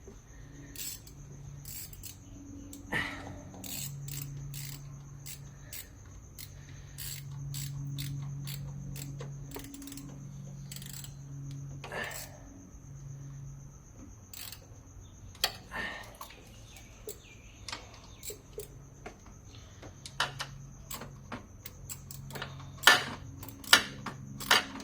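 Hand tools and metal parts clicking and clinking while bolts on a car engine are worked with a socket, in irregular scattered clicks, with a few sharper, louder ones near the end. A low hum comes and goes underneath.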